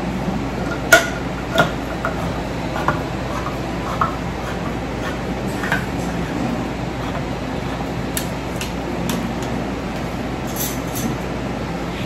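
Manual can opener cutting around the lid of a tin can: scattered short metallic clicks and ticks as the opener is worked.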